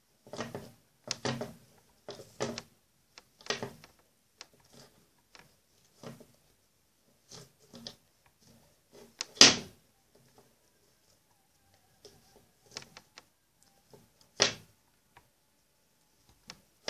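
Handling noises from hands braiding a doll's hair: a run of short rustles and knocks, with two louder thumps, one about halfway through and one a couple of seconds before the end.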